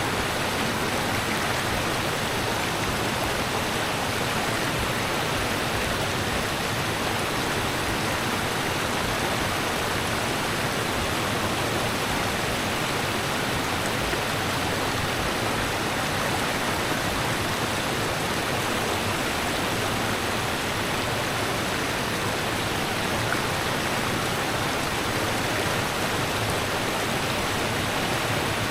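A rushing river running steadily, a constant even rush of water.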